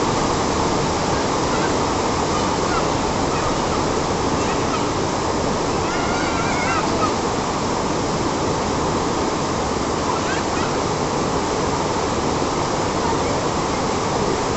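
Heavy rain falling steadily, a dense even hiss, with children splashing through standing water underfoot. Faint high children's shouts rise briefly about six seconds in.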